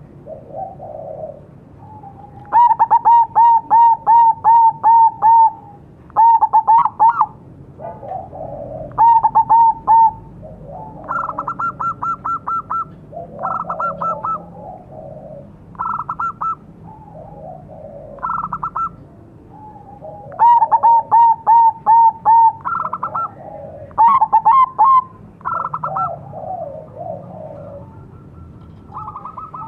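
Zebra doves (perkutut) singing: phrases of six to eight quick staccato coos, repeated every few seconds. Phrases at a lower pitch alternate with phrases at a higher pitch, a crossbred perkutut calling and a local perkutut answering.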